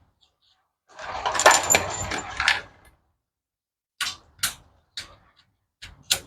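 Clatter of tools and small metal parts being handled, lasting about two seconds, followed by a few short sharp clicks and knocks.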